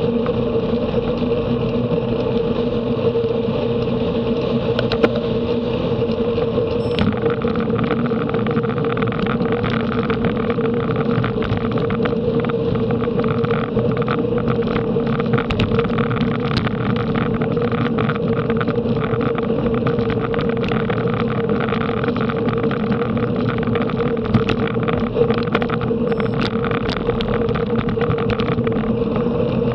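Steady wind rush over the microphone and the steady hum of a road bicycle's tyres on tarmac at race speed, with scattered short clicks and rattles from about seven seconds in.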